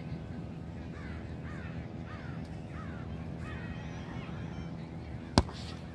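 A bird calling about six times in quick succession, each call falling in pitch, over a steady low background rush. Near the end comes a single sharp slap of a hand striking a beach volleyball on the serve, the loudest sound here.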